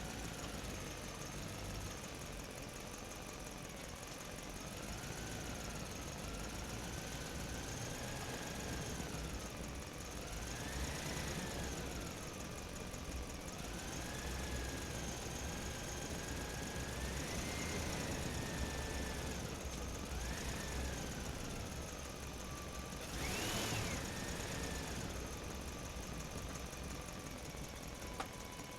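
Small electric motor of a remote-control toy truck whining, its pitch rising and falling again and again as it speeds up and slows down, with the loudest high rise about two-thirds of the way in.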